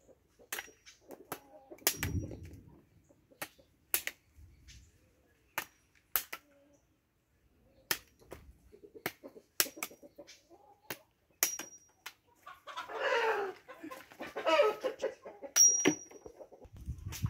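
Machete blade chopping a hand-held cassava stem into planting cuttings: a long, irregular series of sharp cuts, some leaving a short high metallic ring. About thirteen seconds in, chickens call for two or three seconds.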